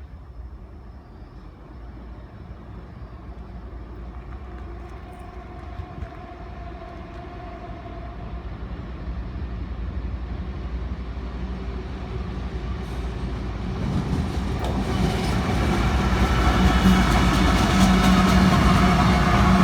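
CSX freight train's diesel locomotives approaching, a low engine rumble growing steadily louder throughout.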